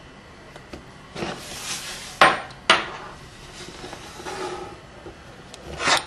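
Pastry cutting wheel and hands working panzerotti dough on a table: rustling scrapes, with two sharp knocks a little after two seconds in and another scrape swelling near the end.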